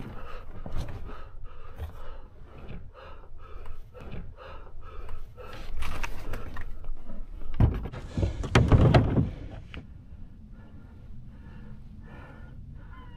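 A person breathing hard while scrambling over rock and bringing a kayak up out of the water, with scuffs and knocks throughout and a loud rush of noise around eight to nine seconds in.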